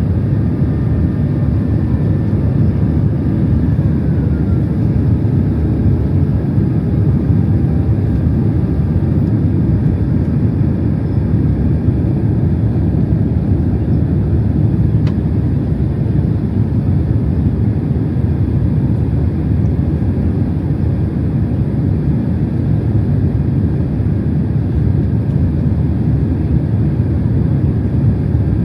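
Steady cabin noise aboard a Boeing 767-300 airliner: a continuous low rush of engines and airflow. In the first few seconds, faint engine tones slide gently downward.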